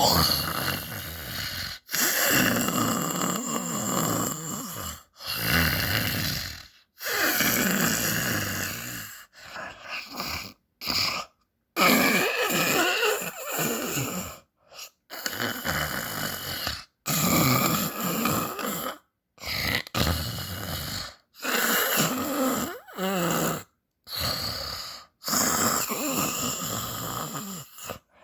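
Snoring: a long run of snores, each one to two seconds long, broken by abrupt silent gaps.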